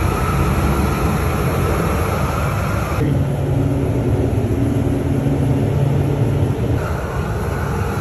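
Large propane burner under a crawfish boil pot, burning with a steady, loud rush. About three seconds in, it gives way to a steady low hum, which changes again near the end.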